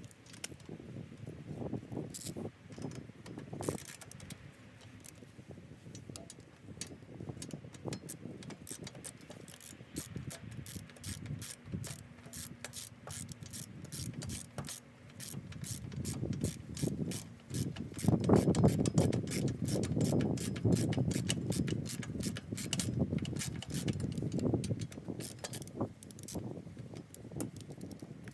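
Hand ratchet wrench clicking in fast strings as bolts on a motorcycle's rear wheel are tightened, with a louder stretch of wrench work about two-thirds of the way through.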